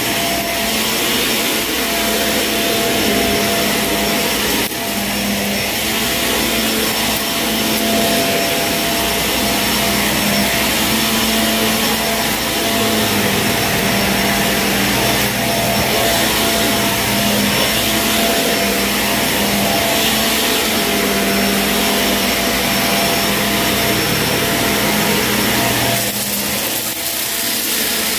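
Shark vacuum cleaner running steadily as it is worked over a dirty carpet, a continuous motor whine over airflow noise. Its sound changes slightly near the end.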